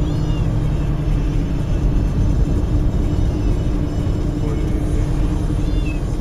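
Steady low rumble of a car driving on the road, with a faint short chirp near the start and another near the end.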